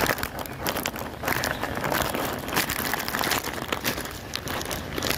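Heavy rain falling on wet paving and foliage, a dense patter of many small clicks.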